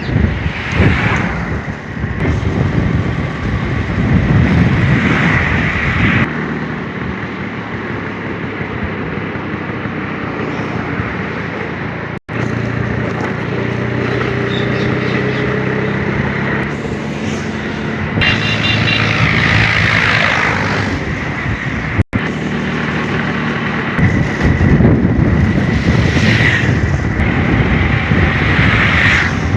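Road traffic noise: motor vehicles passing on a highway, some with a steady engine hum, mixed with wind on the microphone. The sound breaks off abruptly for an instant twice.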